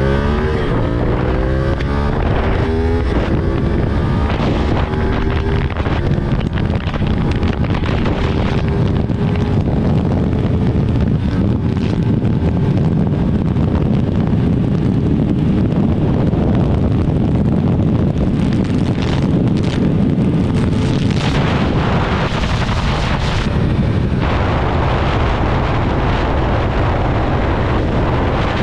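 Sport motorcycle with an aftermarket exhaust accelerating hard through the gears. The engine note climbs and drops back at upshifts in the first three seconds, then the bike runs at high highway speed under heavy wind noise on the helmet microphone.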